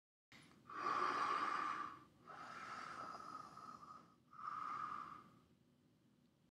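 A person breathing: three faint, drawn-out breaths, each about a second long, the first the loudest.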